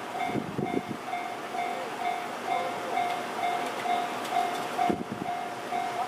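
Japanese railway level-crossing warning bell ringing in a steady repeated pattern, about two electronic dings a second, signalling that a train is approaching. A few low thumps come near the start and about five seconds in.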